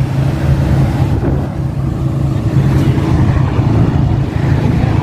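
Heavy diesel machinery engine running at a steady idle: a low, even drone with no hammering or revving.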